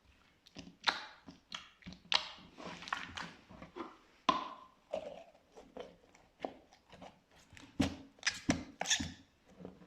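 Blue slime being squeezed and pressed, making a quick, irregular series of wet squelches and sharp pops, two or three a second.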